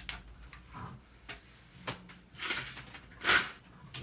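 Scrap being handled: a few scrapes and knocks of sheet metal and cord, with the loudest scrape about three seconds in.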